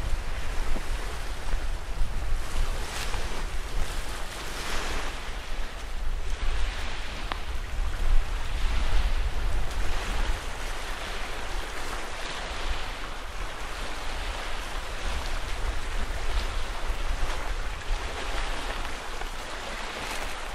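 Small lake waves washing onto the shore in repeated swells every second or two, over a steady low rumble of wind on the microphone.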